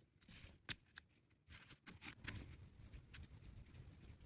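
Very faint rustling and a few small ticks of fingers handling macrame cord while tying reverse lark's head knots onto a filler cord.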